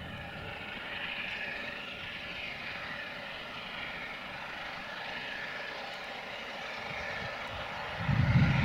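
LNER Peppercorn A1 three-cylinder 4-6-2 steam locomotive 60163 Tornado approaching at speed with its train: a steady distant roar, joined near the end by a sudden surge of deep rumble as the engine draws close.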